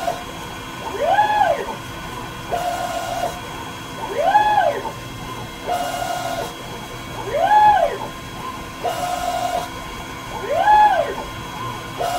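Dyna Myte DM3000 CNC lathe running a repeating machining cycle, about once every three seconds. An axis motor gives a steady whine for under a second as it feeds, then a louder whine that rises and falls in pitch as the axis makes a quick move. A steady hum runs underneath from the running spindle.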